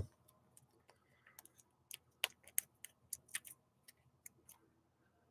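Faint, irregular light ticks and clicks of a trading card being handled between the fingers, about a dozen scattered through the middle of the stretch.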